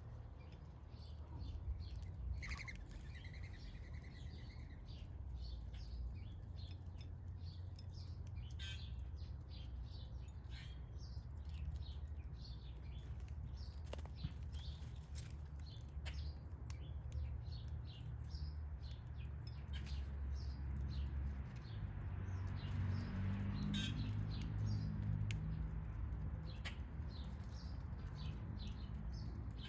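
Backyard songbirds chirping: many short high chirps throughout, with one longer drawn-out call about two seconds in, over a low steady rumble.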